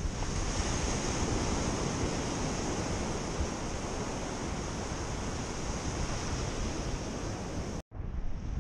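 Steady surf and wind on an open beach, with wind gusting on the microphone as a low rumble. The sound drops out for an instant near the end.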